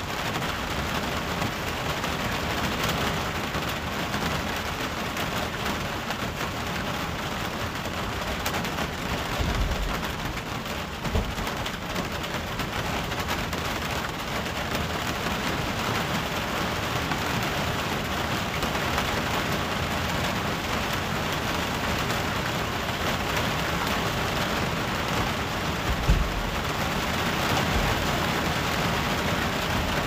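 Steady heavy rain falling on a sheet-metal roof, with low thunder rumbles about ten seconds in and again near the end.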